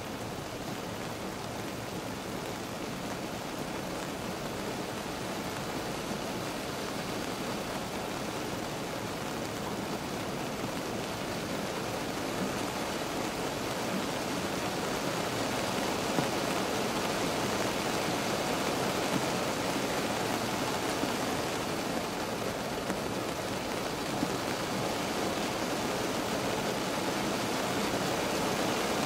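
Steady rain on a car, heard from inside the cabin: a dense, even hiss that slowly grows louder, with a few single sharper ticks.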